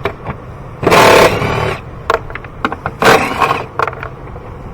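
Two loud scraping, clattering bursts, about a second in and again about three seconds in, with scattered sharp clicks between: hard plastic intake parts and tools being worked in the engine bay while the air box is unbolted and freed.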